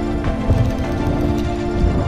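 Background music with sustained chords over a low, steady bass.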